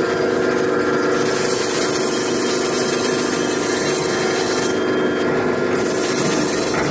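Metal roll forming machine running: a steady motor hum with a hiss that comes in about a second in, fades briefly and returns.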